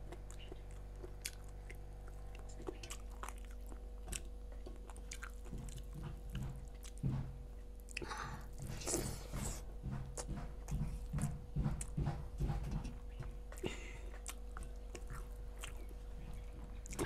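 Close-up chewing of chicken and rice, with a steady rhythm of about two chews a second through the middle and small crunches from chewing on crunchy cartilage. Scattered small clicks and a soft squish come from rice and curry being mixed by hand on a steel plate.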